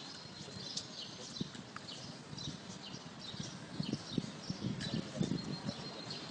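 Footsteps in flip-flops on pavement, irregular low thuds that come thicker in the second half, with small birds chirping throughout.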